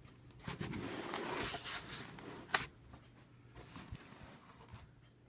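A large cardboard box being handled and shifted: about a second and a half of scraping and rustling, then a single sharp knock about two and a half seconds in, followed by a few faint taps.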